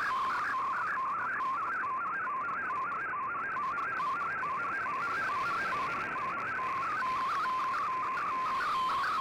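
Shortwave Radiogram MFSK picture transmission received on 15770 kHz by an Icom IC-R8600 in AM: a warbling electronic tone that sweeps up and drops back two or three times a second, carrying the image's pixel lines, over steady radio hiss.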